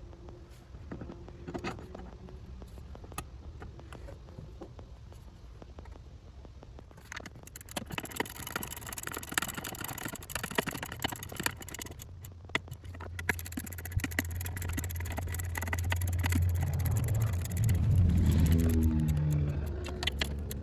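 Tools and metal parts clicking and knocking while a brake master cylinder is fitted in the engine bay, with a low hum swelling in the second half.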